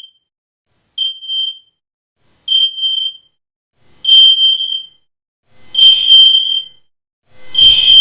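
Smoke alarm beeping: a single high-pitched beep repeated about every second and a half, five times. Each beep is louder and harsher than the one before, with a low rumble building under the last two.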